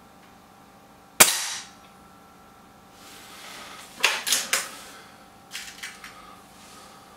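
A BSA Lightning SE air rifle firing a single shot: one sharp crack about a second in, with a short ringing tail. It is followed a few seconds later by a quick run of loud mechanical clacks and then a few softer clicks.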